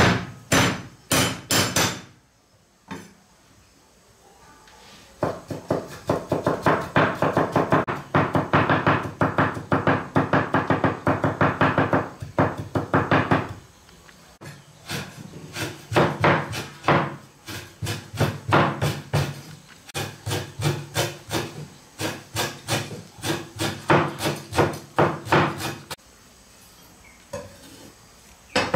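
Repeated chopping with a blade on a wooden block, in long runs of quick strokes with short pauses between the runs.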